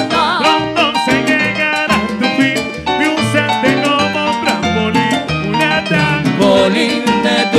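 Live salsa band playing, with percussion and bass keeping a steady rhythm under the other instruments.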